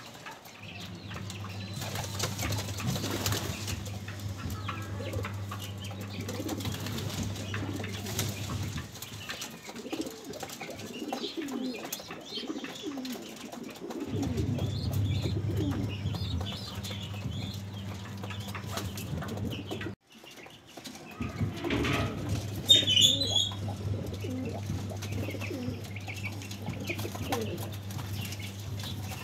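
Domestic pigeons cooing and shuffling in a loft, with wings flapping now and then and a sharp flurry a little past two-thirds of the way in. A steady low hum runs under much of it and drops out for a few seconds twice.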